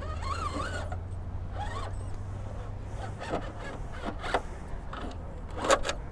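Electric RC rock crawler, a Traxxas TRX4, picking its way over rocks in short throttle bursts: several brief whirring, scraping sounds, the loudest near the end, over a steady low rumble.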